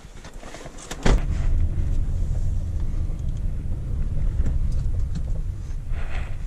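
Steady low rumble of a Hyundai car's engine and road noise heard inside the cabin while driving. It starts abruptly with a sharp knock about a second in, after some quieter handling sounds.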